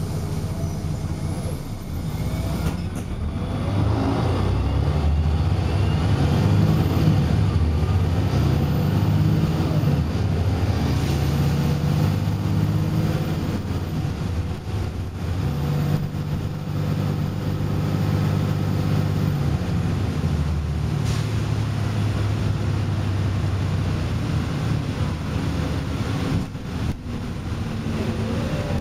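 Volvo B7RLE bus's six-cylinder diesel engine heard from inside the saloon as the bus drives. The engine note rises as it pulls away about four seconds in, then runs on, changing pitch in steps several times.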